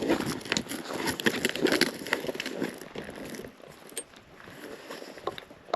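Someone handling gear: irregular rustling, clicks and light knocks, busy for the first few seconds, then a few scattered sharp clicks.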